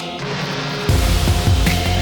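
Background music with a steady beat; the bass and drums drop out briefly and come back in about a second in.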